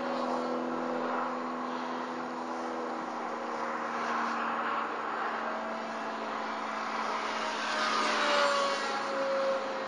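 Electrasport R/C airplane's brushless electric motor and 5x4.5 Gunther propeller whining steadily in flight. It grows louder and its pitch bends as the plane passes low and close near the end.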